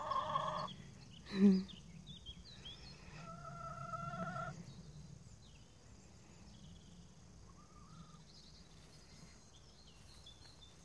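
Chickens calling a few times: a short call at the start, then a longer held call about three seconds in, with faint high chirps in the background.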